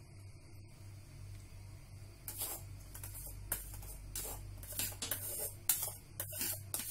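A plastic spoon scraping cooked rice out of a metal mesh strainer into a pot: a run of short, irregular rasping strokes starting about two seconds in, over a steady low hum.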